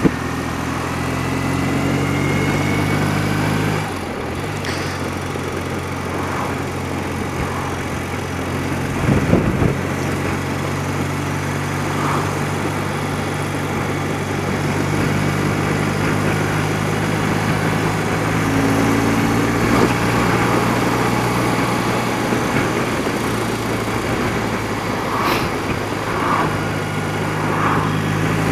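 Old BMW motorcycle engine running at a steady road speed, heard from on the bike through wind and road noise. Its note dips and changes about four seconds in, and there is a short knock around nine seconds.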